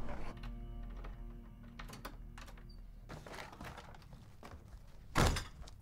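Soft background music with held notes, then a single loud thunk about five seconds in from a front door shutting.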